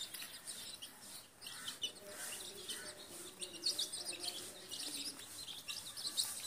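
Half-grown chicks cheeping in many short, high-pitched peeps, scattered irregularly.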